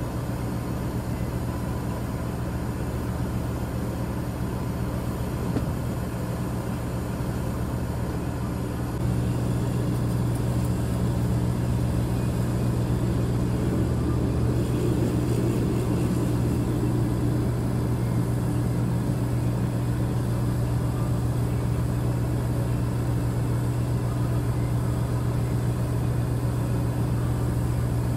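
Steady low engine hum with an even pitch, growing louder about nine seconds in and then holding steady.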